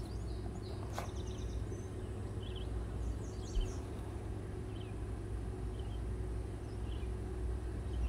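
Outdoor background noise: a steady low rumble with faint, scattered bird chirps, and a single faint click about a second in.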